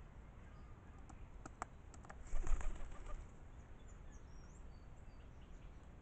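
A rock pigeon's wings flapping as it takes off from a feeder table, a short burst about two and a half seconds in, after a few light taps. Faint high bird chirps in the background.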